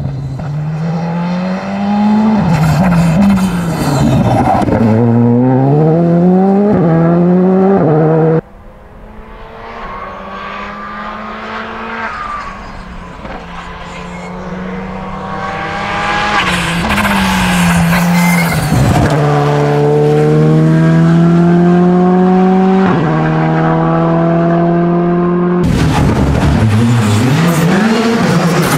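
Škoda Fabia Rally2 rally car's turbocharged four-cylinder engine revving hard at full throttle. Its note climbs and drops again and again as it changes up through the gears. It is heard over three passes, joined by abrupt cuts about eight seconds in and near the end.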